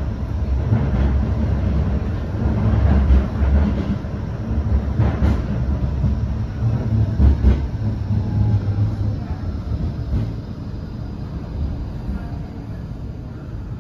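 Tram running along the track, heard on board: a steady low rumble with irregular knocks from the wheels over the rails, getting quieter over the last few seconds.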